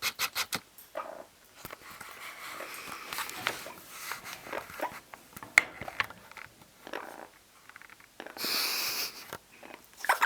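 Orange-winged Amazon parrot moving about in its travel cage: scattered sharp clicks and scrapes of beak and feet on the cage, with a brief hiss-like rush about eight seconds in.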